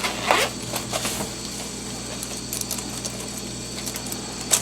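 Refrigerator compressor humming steadily, with scattered light clicks and rattles of small parts being handled.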